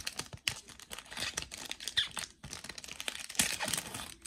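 Wrapper of a 2021 Panini Select baseball card pack crinkling and tearing in the hands as the pack is handled and opened, with irregular crackles and rustles.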